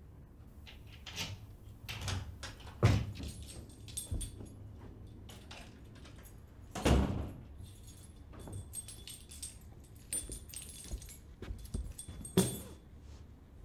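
A run of knocks and thuds, three of them louder and spread through it, with light metallic jangling in between.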